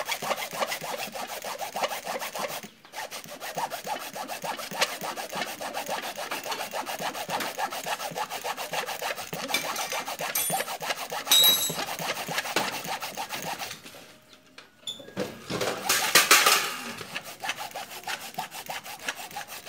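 Hacksaw blade sawing through the plastic case of a sealed motorcycle battery along the lid seam, in quick back-and-forth strokes. The sawing breaks off briefly about three seconds in and again around fourteen seconds in, and is loudest just after the second break.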